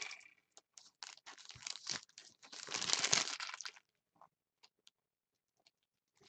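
Foil wrapper of a Panini Totally Certified basketball card pack being torn open and crinkled by hand. The rustling is heaviest from about two and a half to almost four seconds in, then stops, leaving only a few faint ticks.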